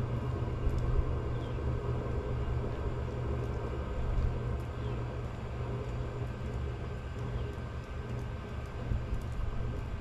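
Diesel parking heater running steadily on used automatic transmission fluid, its combustion exhaust making a low, even rumble at the outlet as it vents a thick white plume of smoke.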